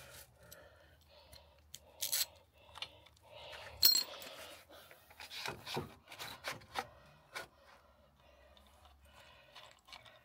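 Ratchet, socket and extension bar working a bolt out of an engine crankcase: scattered metal clicks, clinks and scrapes. The sharpest clink comes about four seconds in, and a run of ticks follows from about five to seven and a half seconds.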